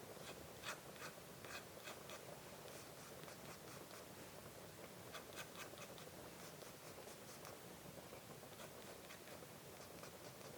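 Faint scratching of a metal dip pen nib on sketchbook paper, in runs of short quick strokes with pauses between them.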